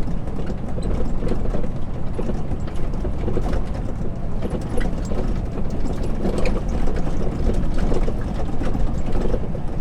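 Heavy diesel engine running steadily, with a constant low rumble and a dense clatter of metallic clicks and rattles.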